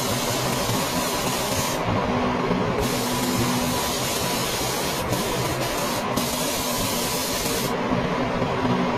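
Compressed-air paint spray gun hissing steadily during painting of a car body panel. Its sharp top end drops out for about a second around two seconds in and again near the end.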